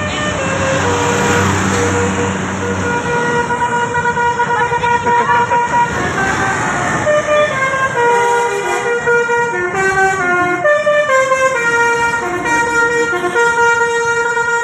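A tour bus's basuri (telolet) musical horn playing a tune in held notes that step up and down, with engine rumble under the first few seconds.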